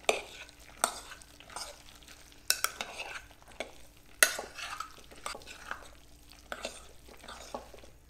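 Metal spoon stirring juicy chopped fruit salsa in a glass mixing bowl: a wet, squelching stir, with the spoon clinking against the glass a few times, most sharply about four seconds in.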